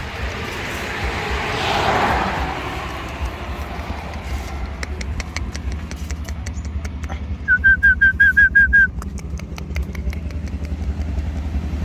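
Outdoor traffic ambience: a steady low engine rumble, with a vehicle passing about two seconds in. Midway through, a rapid series of about eight high, even chirping notes sounds loudest, over a run of sharp clicks.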